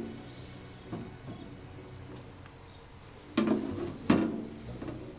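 Two clunks, about three and a half and four seconds in, as the electric lawn tractor's control lever and dash knob are worked by hand, over a low steady hiss.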